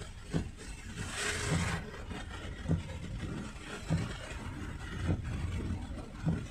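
Car driving in heavy rain, heard from inside the cabin: a steady engine and road rumble, with the windshield wipers thudding at the end of each sweep about every 1.2 seconds. A brief rushing hiss comes about a second in.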